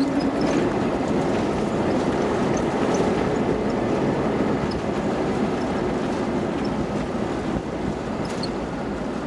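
Airbus A320 cabin noise during the landing rollout: jet engine noise and the rumble of the wheels on the runway, slowly getting quieter as the airliner decelerates.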